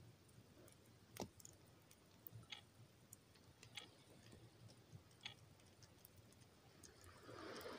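Near silence with a few faint, sharp clicks a second or so apart: a small wood fire crackling. A soft hiss rises near the end.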